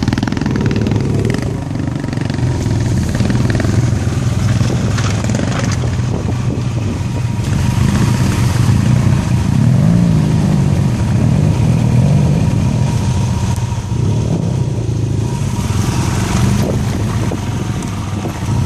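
Dual-sport motorcycle engine running and revving as the bike rides through a shallow river, its pitch rising and falling, with water splashing.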